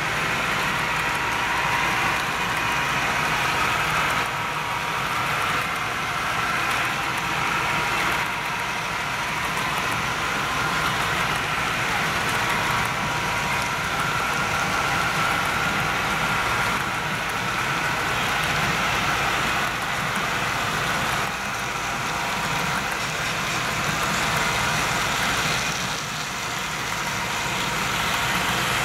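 HO scale model freight train running on the layout: a steady mechanical running sound with a faint whine, along with the hiss of the cars' wheels rolling on the track.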